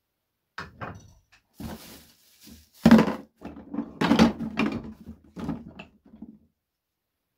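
Reindeer antler pieces and wooden offcuts clattering against each other and the sides of a plastic crate as they are rummaged through by hand: a run of irregular knocks, loudest about three and four seconds in.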